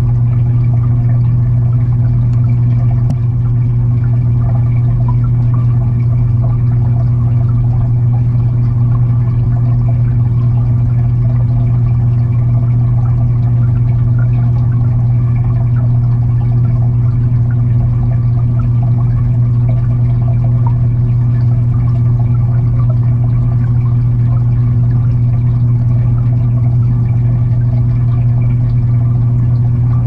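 Fish-tank filter and circulating water heard underwater: a steady low hum with a constant watery rush.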